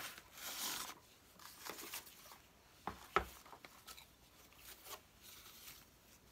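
Cardboard and paper packaging rustling and scraping as porcelain plates are slid out of their box and unwrapped, with two sharp clicks about three seconds in as the plates knock together while being stacked.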